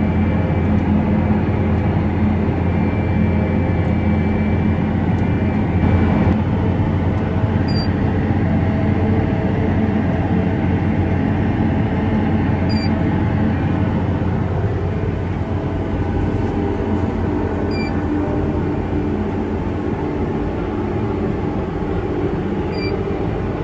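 Steady drone of a Case IH Quadtrac 620 tractor heard from inside its cab while pulling a seed drill, a low even hum that eases slightly in the second half. A faint short high blip sounds about every five seconds.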